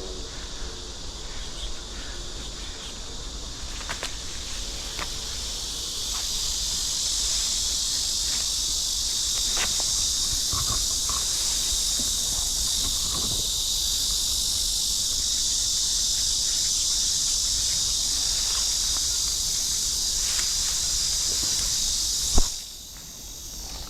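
Steady high-pitched insect buzzing that grows louder about six seconds in and cuts off abruptly with a sharp click near the end, with faint rustles and steps underneath.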